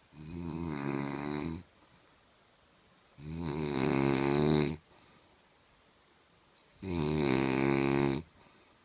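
A person snoring loudly: three long snores of about a second and a half each, a couple of seconds apart, each a steady buzzing tone, the middle one the loudest.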